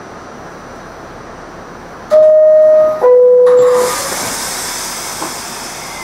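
R68 subway car's door chime: two clear tones, the second lower, each under a second long. A hiss of air follows as the doors close.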